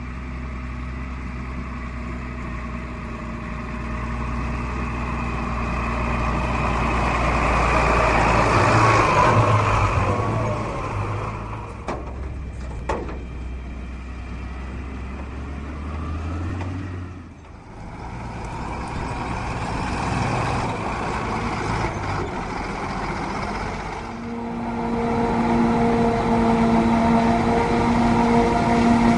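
Heavy diesel farm machinery working: a Krone BigX 500 self-propelled forage harvester and the tractors hauling its chop run steadily. The drone swells and fades as they pass, with a couple of sharp knocks about halfway and a steadier, higher engine tone taking over near the end.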